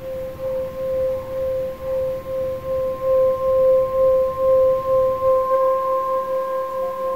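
Hand-held Himalayan singing bowl sung by rubbing a wooden mallet around its rim: one steady ringing tone with a fainter higher overtone, pulsing in loudness about three times every two seconds. It swells louder over the first few seconds and then holds.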